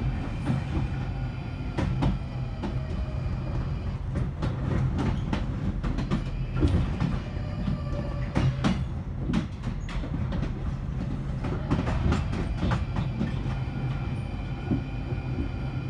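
A London Underground 1995 Stock train running, heard from inside the carriage: a steady low rumble, irregular clicks and knocks as the wheels cross rail joints and points, and a steady high whine.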